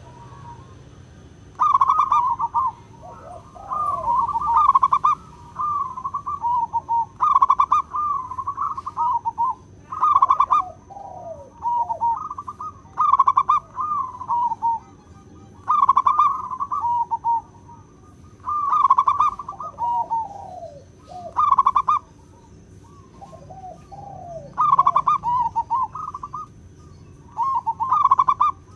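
Zebra dove cooing: repeated phrases of rapid, rolling coos every two to three seconds, some ending in lower falling notes.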